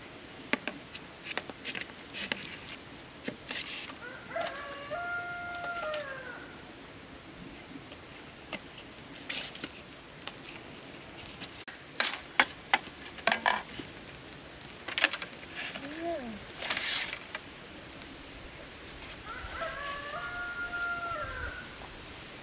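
A rooster crowing twice, each crow rising, holding and falling over about two seconds, with scattered sharp clicks and knocks in between.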